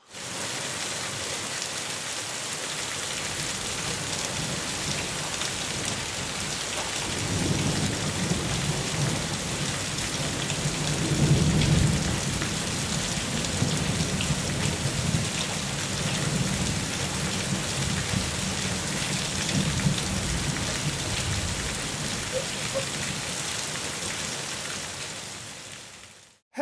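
Steady rain with rolling thunder: a low rumble builds about seven seconds in, is loudest around twelve seconds, then trails off. The sound fades out at the end.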